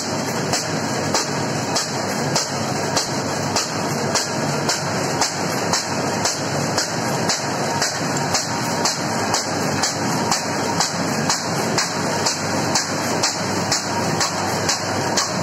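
High-speed, fully automatic paper bag making machine running: a steady mechanical clatter with a sharp, even clack repeating about three times a second.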